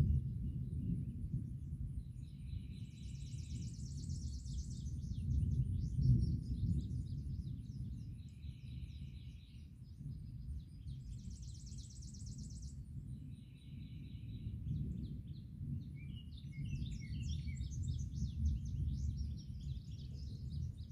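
Distant thunder rumbling low and continuously, swelling at the start and again about six seconds in, with birds singing repeated short trilled phrases and chirps over it.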